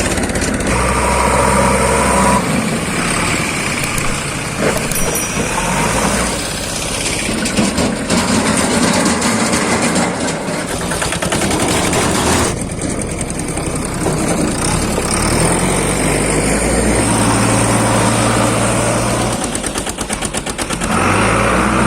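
Diesel engine of heavy machinery running under work, its note stepping up and down several times, with a clattering rattle.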